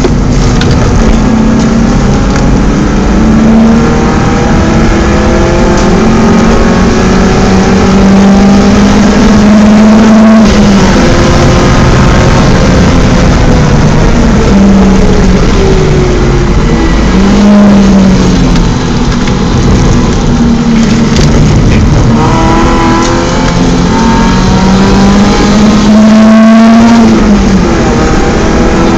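BMW 318is race car's four-cylinder engine running hard on track, its loud note climbing through the revs and falling back at each gear change or braking point. There are sharp drops in pitch about ten seconds in, again around seventeen seconds, and near the end.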